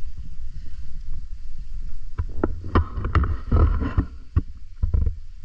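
Wind rumbling on an action camera's microphone, with irregular clicks and knocks as the handheld camera is carried over rocky ground.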